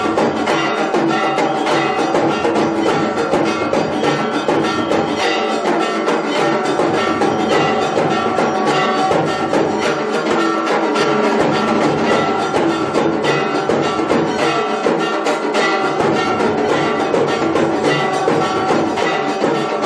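Temple aarti music: bells ringing with drums and clanging percussion in a steady, busy rhythm.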